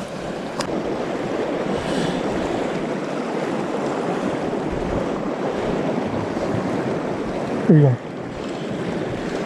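Fast river water rushing steadily through a riffle.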